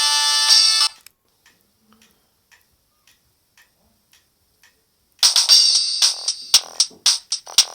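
Samsung SGH E300 mobile phone playing its polyphonic ringtones through its small speaker. One melody cuts off about a second in, and faint ticks follow for about four seconds. Then a louder ringtone starts, with sharp drum-like hits.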